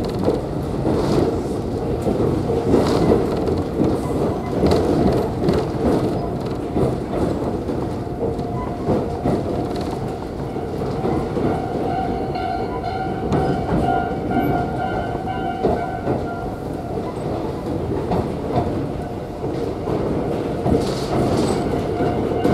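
Interior of a Kōnan Railway Ōwani Line electric train running, a steady rumble with the clickety-clack of the wheels over rail joints. About halfway through, and again near the end, the ringing of level-crossing warning bells passes by.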